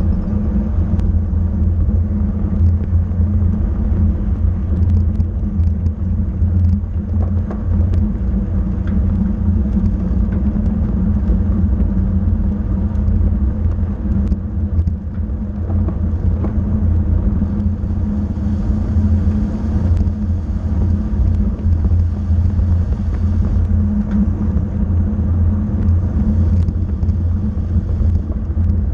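Steady low rumble of wind rushing over the microphone and tyre noise from a road racing bicycle riding at speed in a pack.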